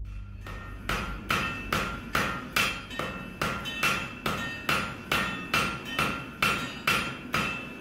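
Blacksmith's hand hammer striking red-hot iron on an anvil in a steady rhythm of a little over two blows a second, starting about half a second in. Each blow rings with a bright metallic tone.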